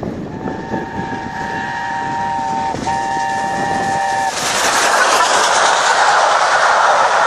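LNER A4 steam locomotive sounding its chime whistle as it approaches: a long blast, a brief break, then a shorter second blast, over the beat of its exhaust. The engine then passes and its coaches roll by close with a loud, steady rushing of wheels on rail.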